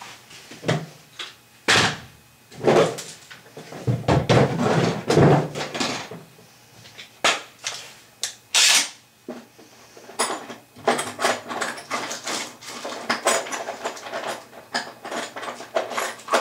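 Tools and metal parts being handled during a toilet flange repair: irregular knocks, clinks and scrapes, with a longer rattling scrape a little past the middle and a dense run of quick clicks in the last few seconds.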